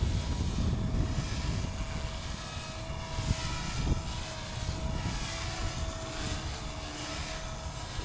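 Align T-Rex 250 electric RC helicopter flying, its motor and rotor giving a steady whine, over heavy wind buffeting the microphone.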